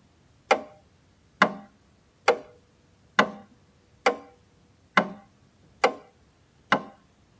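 Eight sharp, evenly spaced clock-like ticks, a little faster than one a second, each ringing out briefly.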